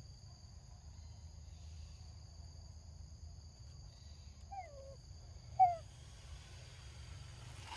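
Forest insects droning steadily in two high pitches, fading out about five and a half seconds in. Two short falling animal calls come near the middle, the second one loud.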